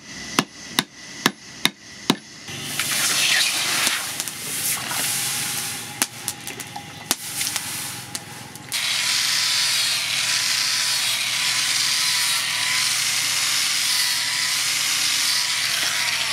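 Hammer blows ringing on steel, about two to three a second, for the first two seconds; then mixed workshop clatter with scattered knocks; and from about halfway a steady hiss with a faint whine in it.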